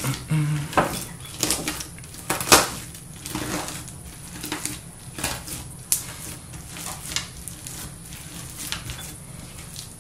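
Fruit Loops cereal being crushed and kneaded by hand into clear slime: irregular crunches and crackles, densest and loudest in the first few seconds, then sparser.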